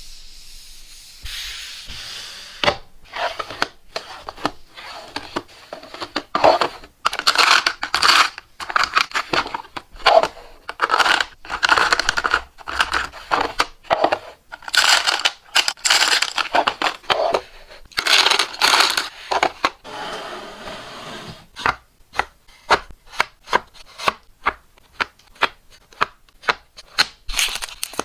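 Repeated rubbing and scraping strokes on a hard surface, each lasting about half a second to a second, giving way to shorter, quicker strokes near the end.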